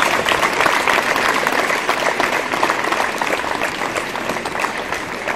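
Outdoor crowd applauding, many hands clapping at once, the applause slowly dying away towards the end.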